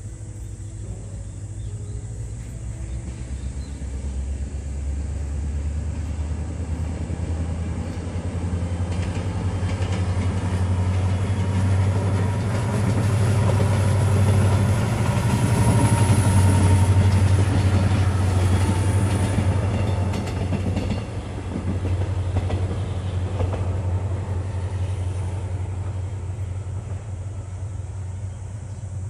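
Diesel locomotive hauling a Mugunghwa-ho passenger train while working hard up a grade. Its deep, steady engine drone grows louder as it approaches and is loudest about halfway through as the locomotive passes. It then eases off as the carriages roll by, their wheels clicking over the rail joints.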